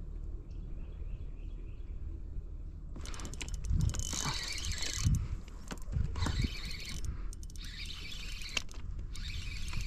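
About three seconds in, a fishing reel starts being cranked in uneven runs with low knocks, working a hooked shad on a hard-bent rod. Before that there are only a few faint chirps over a low rumble.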